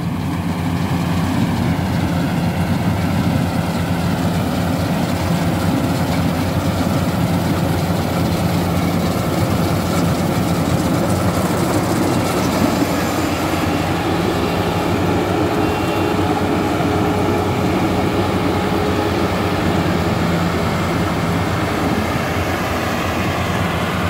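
GAM mini combine harvester at work cutting and threshing standing paddy: its four-cylinder engine runs steadily under load with the constant clatter of the machine.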